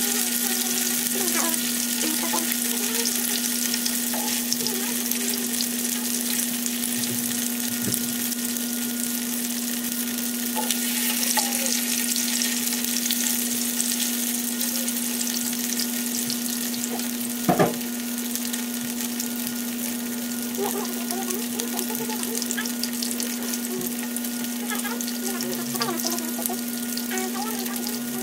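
Skinless longganisa sausages frying in hot oil in a non-stick pan: a steady sizzling hiss with small crackles, over a steady low hum. About two-thirds of the way in comes a single sharp knock.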